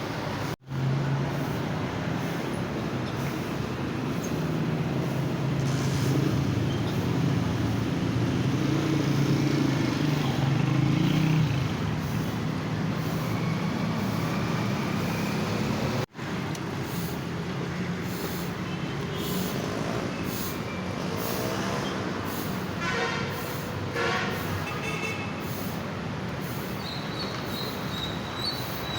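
Road traffic: a steady background of vehicle engines, with a heavy engine rumble that builds and fades in the first half and scattered short sounds later.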